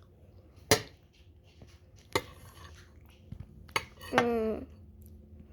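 Spoon clinking against a dish while eating Jello: two sharp clinks and a few lighter taps, then a short vocal sound from the child about four seconds in.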